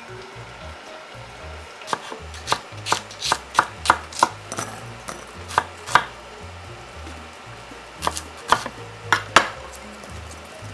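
Chef's knife cutting an onion on an end-grain wooden cutting board: a run of about ten sharp knocks on the board, a pause, then about six more near the end.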